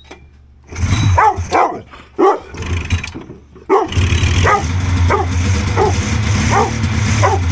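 A dog barking excitedly over and over, over the rushing, whirring noise of a snowmobile's recoil starter being pulled to crank a three-cylinder two-stroke engine that does not fire; the carburettors are still filling with fuel.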